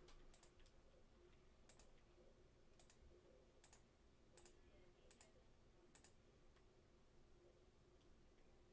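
Near silence with faint computer clicks: about seven single, sharp clicks spaced roughly a second apart over the first six seconds.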